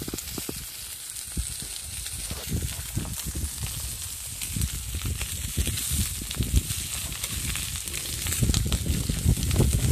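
Sausages and onions sizzling on a stainless-steel barbecue hotplate, a steady hiss with fine crackling spatter. Irregular low rumbles of wind on the microphone run under it.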